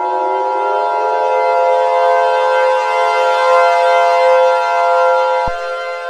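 Civil defense siren sound: several steady pitches held together, with a lower one winding up during the first second. One of the higher pitches cuts out with a short click about five and a half seconds in.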